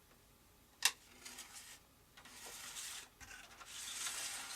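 Small handling noises of RC control-rod parts: one sharp click a little under a second in, then a scraping rustle in two stretches as a pushrod wire is slid into its plastic guide tube.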